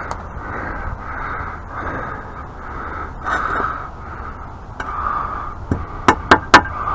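Hand tools or metal parts knocking together during pressure washer repair work: four sharp clinks in quick succession about six seconds in, over a low steady background noise.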